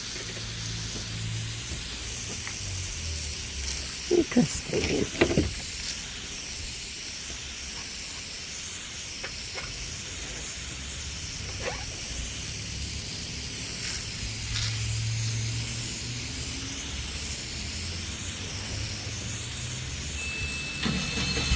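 Steady hiss over a low, steady engine hum.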